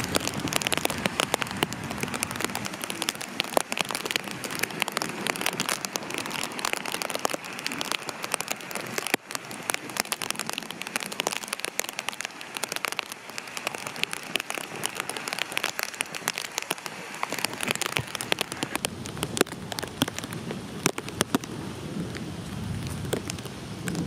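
Heavy rain, with drops hitting close to the microphone in a dense, fast ticking over a steady hiss of rain.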